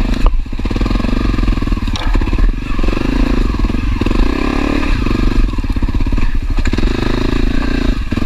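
Honda CRF250L's single-cylinder four-stroke engine running on a woodland trail, the throttle opening and easing off every second or two.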